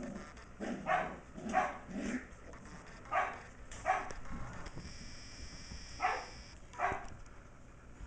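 Sheltie puppy barking in short, high yips, about seven in all, coming in three quick groups.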